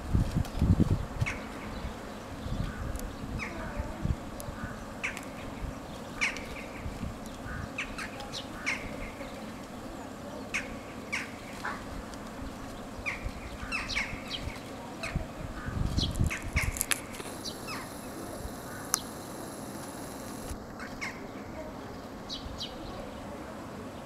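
Scattered short calls from a flock of corvids (rooks, jackdaws and crows) feeding, with a couple of bouts of low thuds, right at the start and about two-thirds of the way in.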